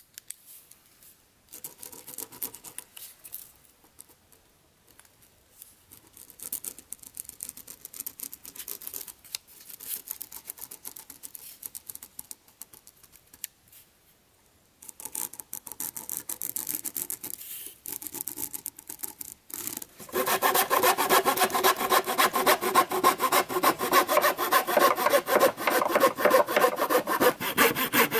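A pen scratching as it traces around a cardboard template onto a wooden board, in soft intermittent strokes. From about two-thirds of the way in, a hand saw cuts along the traced curve in fast, even, louder strokes.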